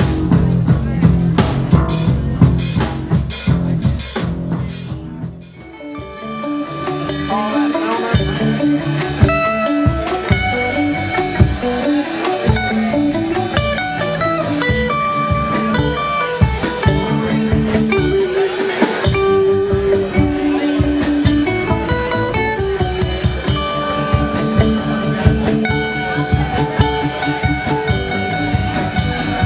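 Live rock band playing electric guitar, electric bass and drum kit. A loud, drum-heavy passage drops away about five seconds in, and a passage of running picked notes over lighter drumming follows.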